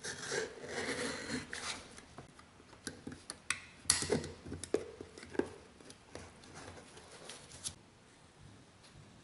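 Utility knife scraping and cutting through a sheet of gasket material, with the sheet rustling. A few sharp ticks and taps follow as the cut goes on.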